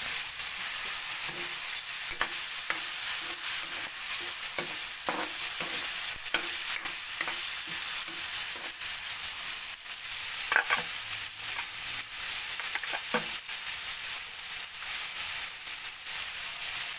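Pork and shrimp sizzling in hot oil in a wok, with a metal spatula scraping and clinking against the pan as they are stir-fried. A couple of louder strokes come about ten and thirteen seconds in.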